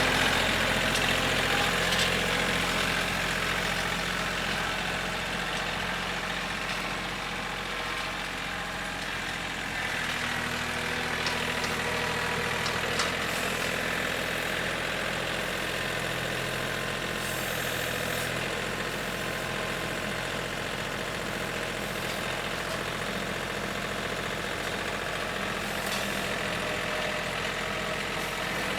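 An engine running steadily at a low, even speed, close to idle, with a slight dip in level part-way through.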